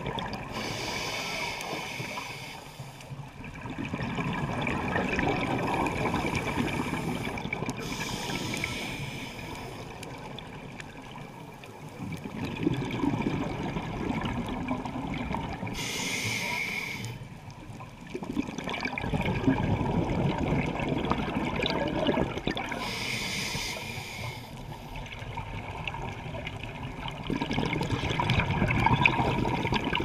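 Scuba diver breathing through a regulator underwater: a hiss of inhalation through the demand valve four times, about every seven seconds, each followed by several seconds of bubbling as the breath is exhaled.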